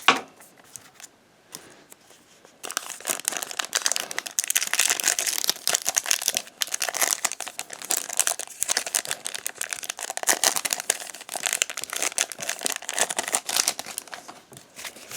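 Foil booster-pack wrapper of Pokémon trading cards crinkling and rustling as it is worked open and the cards are pulled out. After a sharp click at the start and a short lull, the crinkling starts about three seconds in and goes on busily.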